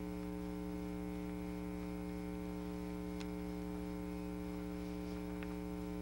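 Steady electrical mains hum on the recording, with two faint ticks, about three and five seconds in.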